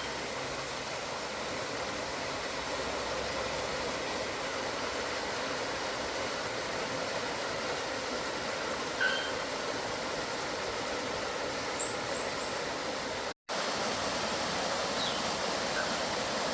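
Waterfall: a steady rush of falling water, with a few brief high chirps over it. The sound cuts out for an instant a little past halfway.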